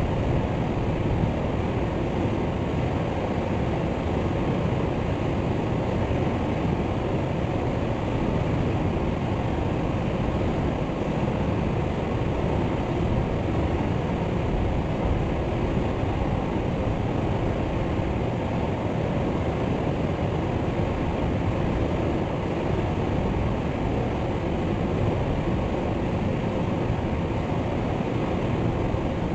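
Waterfall: falling water rushing steadily and evenly, deep and full, with no birdsong.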